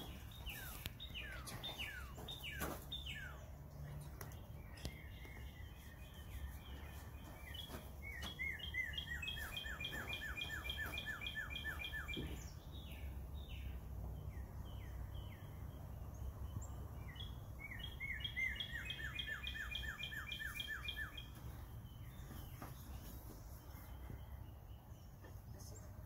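Wild songbirds singing: a few quick down-slurred chirps at first, then twice a rapid trilled song lasting several seconds.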